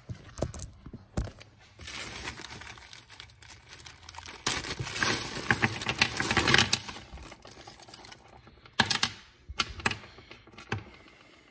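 Loose metal bolts for the water pump clinking and rattling as they are handled and sorted, with rustling. There are a few sharp clicks, and a dense clatter about halfway through.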